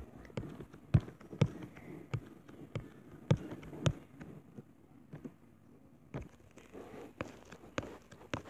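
Fingertips tapping and knocking on a tablet's touchscreen, picked up by its own microphone as a string of irregular sharp clicks. The loudest come in two pairs, about a second in and again past three seconds.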